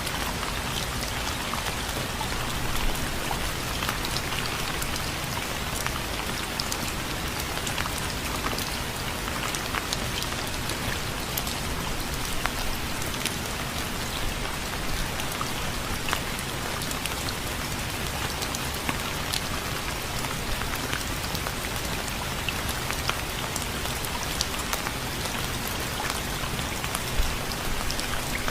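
Steady rain falling on a surface, a dense hiss with many close drop ticks.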